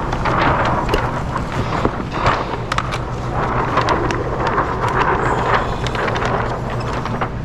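Sheet of window tint film rustling and crinkling as it is handled and laid over a curved window, in uneven swells with many small crackles, over a steady low hum.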